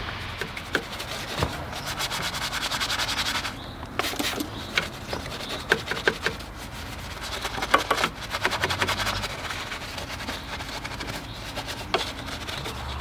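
Detailing brush and towel scrubbing a dirty engine, in quick scratchy strokes. Several sharp clicks and knocks are scattered through.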